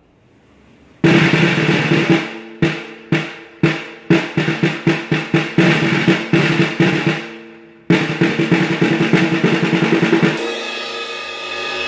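Griffin 14-inch standard snare drum played with drumsticks, snares on: a roll starting about a second in, then single strokes and faster patterns, then another roll that stops near the end. The drum has a ring to it and is not crisp, the way it sounds out of the box before adjustment.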